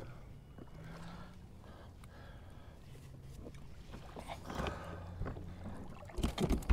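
Small noises of handling on a fishing kayak: low water and hull sounds with some rustling, then a quick cluster of loud knocks and thumps near the end.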